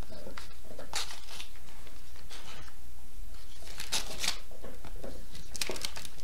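Paper and envelopes rustling and crinkling as mail is handled, in a few short rustles about a second in, around four seconds in and near the end, over a steady low hum.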